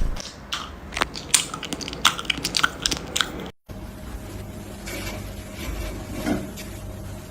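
Crunchy chewing: a quick, irregular run of sharp crunches for about three and a half seconds, which cuts off abruptly. A quieter stretch with a low steady hum follows.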